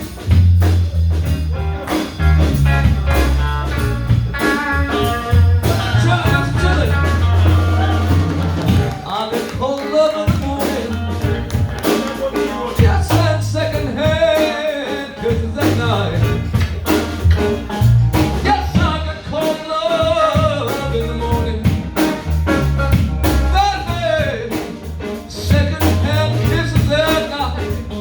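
Live blues band playing: a steady bass and drum groove with guitar, and from about a third of the way in a lead line that bends up and down in pitch.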